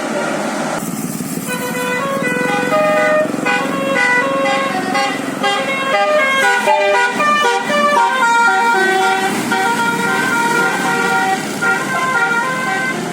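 A bus's basuri telolet horn, a multi-note air horn, playing a fast melody of quick stepping notes that starts about a second in, over a steady low rumble.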